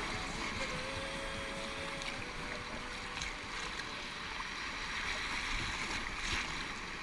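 Little River rushing over rocks in a shallow rapid, heard close to the water surface as a steady rush, with a few sharper splashes.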